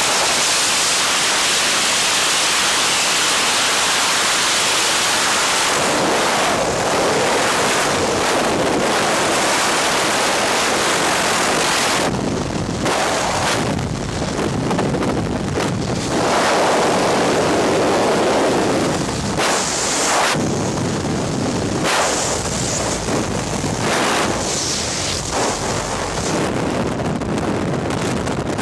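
Freefall wind rushing loudly over a skydiver's helmet-camera microphone. It is steady at first, then from about six seconds in it wavers and surges as the body and head shift in the airflow.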